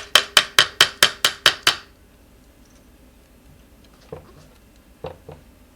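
Small hammer banging on the e-scooter's rear wheel and axle to drive the wheel onto the axle: about nine quick blows in a fast, even run, stopping about two seconds in, then a few lighter knocks near the end.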